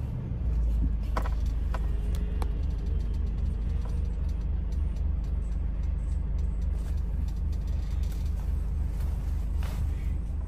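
A vehicle's engine running at low speed, heard from inside the cab as a steady low rumble with a regular pulse while it creeps into a parking spot. A few light clicks come in the first couple of seconds.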